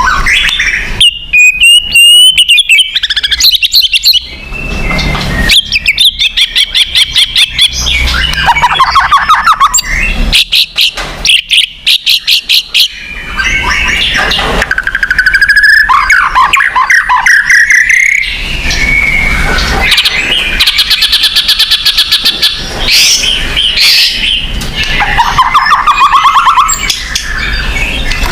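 White-rumped shama (murai batu) singing a long, varied song: loud whistled phrases that slide up and down, fast runs of rapidly repeated notes, and chattering passages, one after another with short pauses between.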